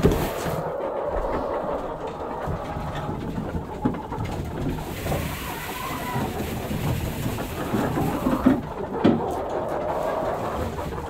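Hens clucking softly in a henhouse over a steady low rumble, with rustling and a few knocks, the loudest at the very start and a pair near the end.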